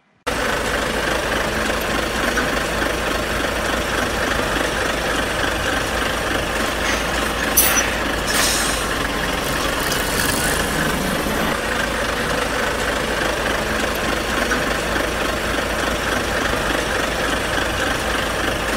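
Heavy diesel truck engine idling steadily, with a couple of short air hisses about eight seconds in.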